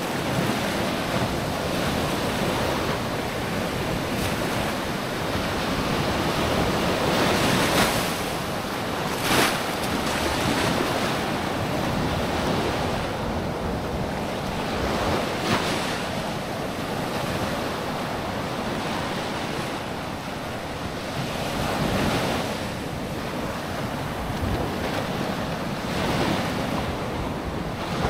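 Sea waves breaking and washing onto a sandy beach in steady, swelling surges, with wind buffeting the microphone.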